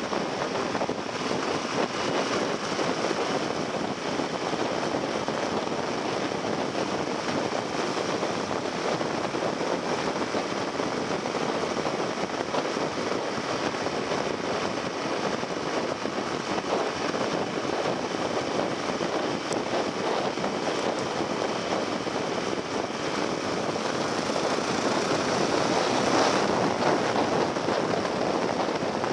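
Steady rush of wind and road noise with the engine of a Yamaha XT1200Z Super Ténéré parallel-twin motorcycle running at road speed. It gets a little louder about 25 seconds in.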